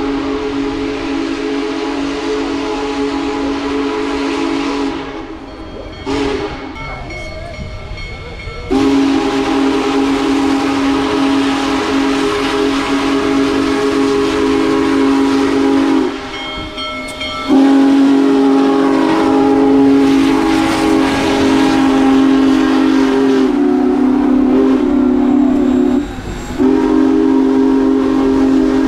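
Union Pacific Big Boy No. 4014, a 4-8-8-4 steam locomotive, blowing its deep chime steam whistle in a series of long blasts with brief gaps, with a short toot about six seconds in. The locomotive passes close by near the end.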